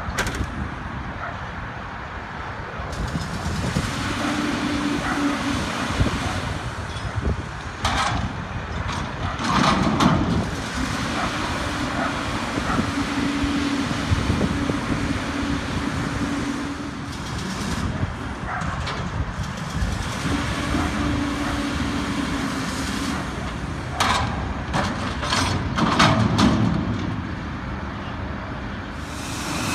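Autocar Xpeditor front-loader garbage truck running, its engine revving with a steady tone at times as the hydraulic forks lift a dumpster up over the cab. Several sharp bangs come about a third of the way in and again near the end, as the container knocks and empties into the hopper.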